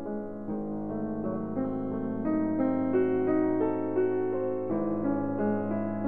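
Background piano music: a melody moving note by note over a held low tone.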